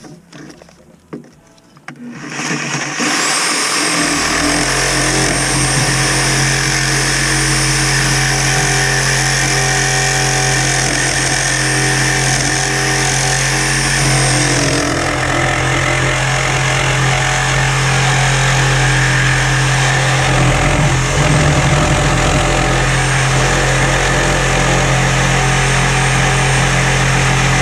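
Reciprocating saw starting up about two seconds in and cutting steadily through cast iron sewer pipe, with the blade's high-pitched edge fading about halfway through.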